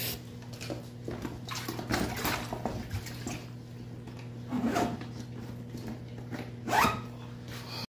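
Nylon soft-sided cooler bag rustling and scraping as it is handled with a fish inside, with a zipper pulled along it, loudest about halfway through and again near the end.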